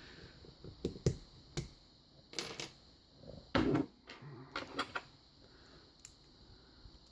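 Irregular metallic clicks and clacks from a Sargent 6-pin lock cylinder and picking tools being handled as the lock is turned back to locked. The loudest clack comes about halfway through.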